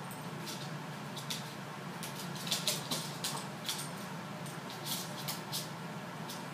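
A dog and a cat wrestling on a wooden floor: quick irregular scuffs and clicks of claws and paws scrabbling, thickest in the middle, over a steady low hum.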